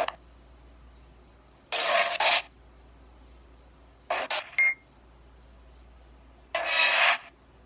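Spirit box scanning through radio stations, giving out three short bursts of static and clipped radio sound about two seconds apart, with a low hiss between them.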